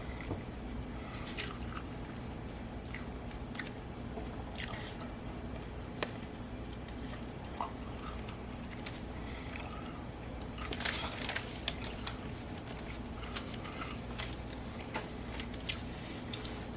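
A person chewing and biting into a double bacon burger close to the microphone. Wet, squishy mouth sounds come with scattered small crunches and clicks, busiest about two thirds of the way through, over a steady low hum.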